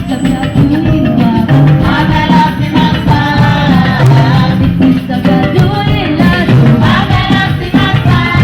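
Music with singing over a steady beat of drums and percussion.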